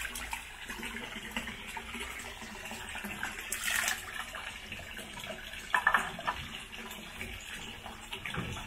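Running water, a steady rush with a few brief louder moments.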